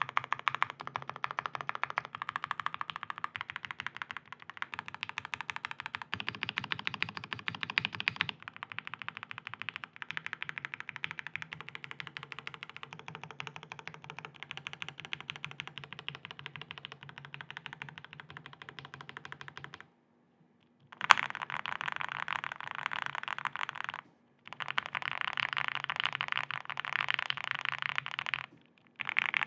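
Fast, continuous typing on a KBDfans Tiger 80 mechanical keyboard with stock Gateron Oil King linear switches on a polycarbonate plate and PBT keycaps: a dense run of quick key clacks, broken by a few short pauses in the last third.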